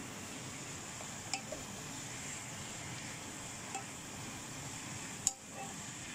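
Wooden spatula stir-frying shredded cabbage and carrots in a nonstick wok, knocking against the pan four times, loudest near the end, over a steady hiss.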